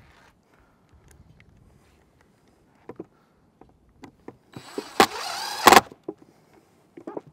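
DeWalt cordless driver running a screw through a metal pipe boot's flange into a steel roof panel: a burst of motor whine of about a second and a half, rising in pitch, with sharp clacks at its start and end. Small clicks of screws and tools being handled come before it.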